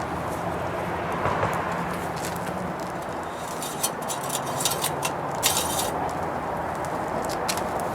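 Steady low hum with a few short, light clicks and scrapes in the middle: the engine oil dipstick being pulled out, wiped and handled.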